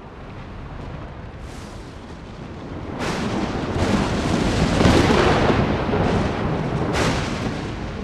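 Thunder: a sharp crack about three seconds in that swells into a long rolling rumble, then another crack near the end, over a steady low rumble.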